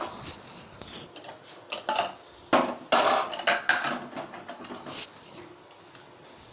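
Metal clatter and clinks as an aluminium pressure cooker is opened after cooking: the whistle weight lifted off and the lid worked free, with a steel ladle set down on the stove's metal tray. The sharpest clatter comes in a cluster a little past the middle.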